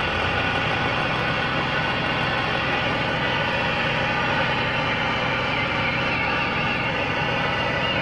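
Cobra 29 LX CB radio receiving on channel 19 with the squelch open: a steady rush of static and hash, with a warbling high tone coming through from about five and a half seconds in.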